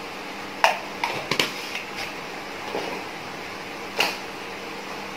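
A few sharp plastic clicks and knocks as a salt tub and its measuring spoon are handled. The loudest comes a little over half a second in, a quick cluster follows around one to one and a half seconds, and one more comes about four seconds in as the tub is set back on a shelf. A steady low hum runs underneath.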